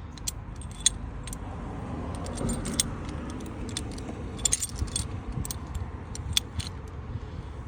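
Scattered light metallic clinks and jingles as the hooks of an internal coil spring compressor are handled, over a steady low background rumble.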